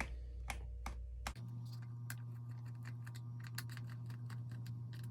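Small Phillips-head screwdriver backing out the screws on the plastic back of a trolling motor remote: quick, irregular light clicks and ticks. A low steady hum sets in about a second and a half in.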